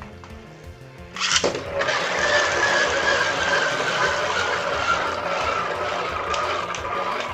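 Beyblade spinning tops launched into a plastic stadium with a sharp burst, then whirring and scraping against the stadium floor with a steady hiss and a whine that slowly falls in pitch as they lose speed.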